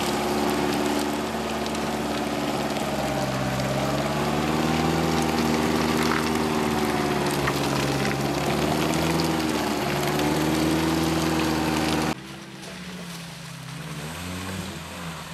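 Suzuki Grand Vitara engine revving up and down under load as the 4x4 works through deep mud on a line. About twelve seconds in, the sound cuts abruptly to a quieter, more distant 4x4 engine crawling through mud.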